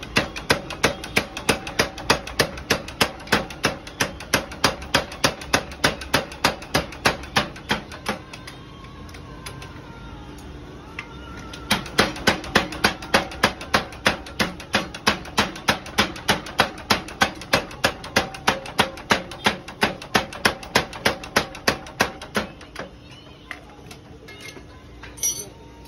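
A 45 kg mechanical forging power hammer striking a red-hot steel cultivator shovel in fast, even blows, about three a second. The blows pause for a few seconds, start again, and stop shortly before the end.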